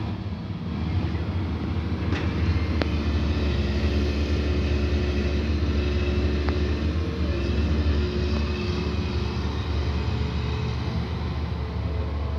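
Heavy diesel engines of a Mercedes-Benz 3544 tipper truck and a Liebherr 944 excavator running steadily side by side, with two faint clicks about two and three seconds in.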